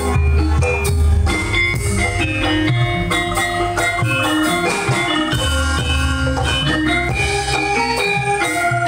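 Campursari music played live by a Javanese gamelan ensemble: struck metal gamelan keys and gongs ring out short stepped notes over drums and a pulsing low bass.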